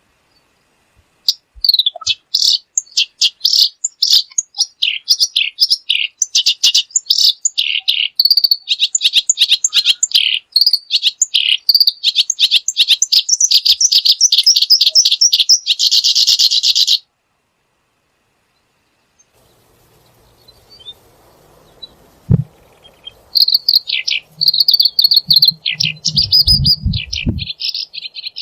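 A small songbird singing a long, fast run of high chirping notes that ends in a dense trill; after a pause of several seconds it starts a second phrase, with a few low bumps underneath.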